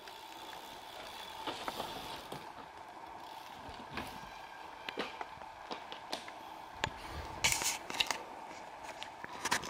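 Mountain bikes riding past on the dirt course: scattered clicks, crunches and scrapes from tyres and drivetrains, with a denser cluster about seven and a half seconds in.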